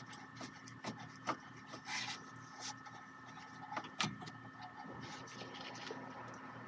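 Mini Cooper rear brake caliper being handled and worked off its mount: scattered metal clicks and short scrapes, with a sharp knock about four seconds in, over a faint steady hum.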